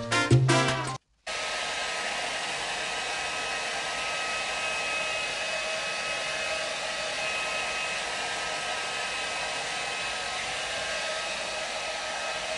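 A hand-held hair dryer running steadily as it blows on wet hair, its even rushing noise carrying a faint steady whine. It starts about a second in, right after a snatch of background music cuts off.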